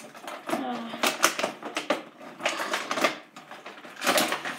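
Clear plastic toy packaging crinkling and crackling as it is pulled and torn open by hand, in irregular clusters of sharp snaps.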